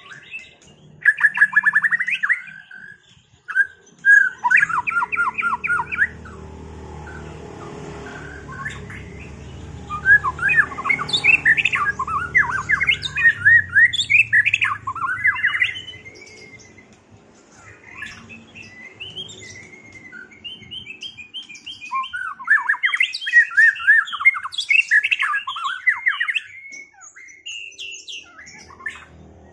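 White-rumped shama (murai batu) singing hard in repeated bursts of rapid, loud phrases with short pauses between them, the aggressive singing of a duel with a rival bird. A low steady hum runs under the middle part.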